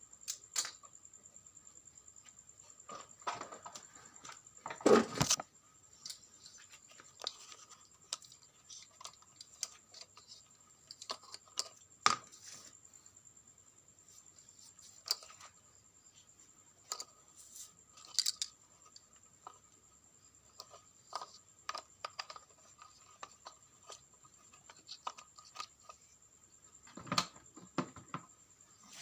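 Scattered clicks, taps and scrapes of small parts and tools being handled, with a louder scrape about five seconds in and another cluster near the end, over a faint steady high whine.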